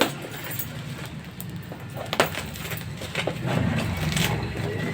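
Wrapped packaging being handled and pulled open: scattered crinkles and clicks, with a sharp click about two seconds in.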